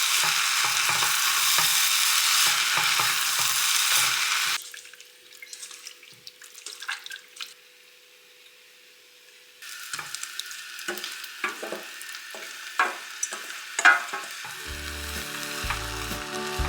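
Food frying in a pan: a loud, steady sizzle with low knocks of stirring for about the first four and a half seconds, then it cuts off suddenly. After a few quiet seconds with only a few clicks, a softer sizzle with scattered clicks returns, and music comes in near the end.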